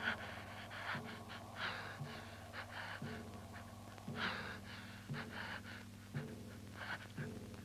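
A person breathing hard in short gasps, about one a second, over a steady low hum.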